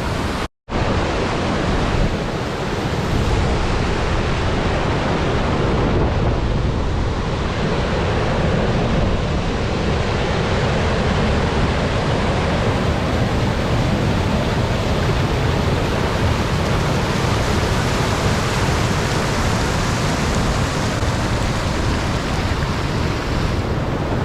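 Waterfall rushing: a heavy flow of water pouring over the falls makes a loud, steady roar of noise. It cuts out briefly about half a second in.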